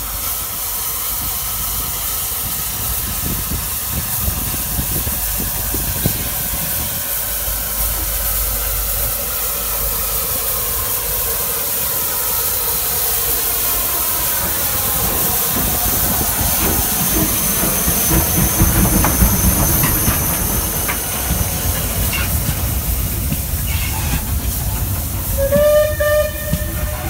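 Steam locomotive 34052 'Lord Dowding', a rebuilt Bulleid Light Pacific, running slowly past at close range with a steady hiss of steam, growing louder as it comes alongside. About a second and a half before the end comes a brief high-pitched tone.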